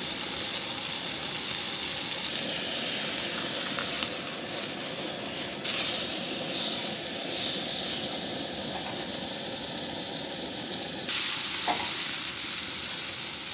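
Steak searing in a hot pan, a steady sizzle that steps up sharply louder twice, about six seconds in and again about eleven seconds in.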